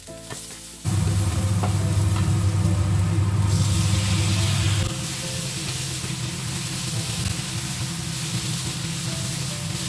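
Raw chicken pieces tipped into a hot oiled frying pan with shallots, setting off a sizzle about three and a half seconds in that keeps on as they fry and are stirred with a wooden spatula. A loud low rumble starts about a second in and drops away about five seconds in.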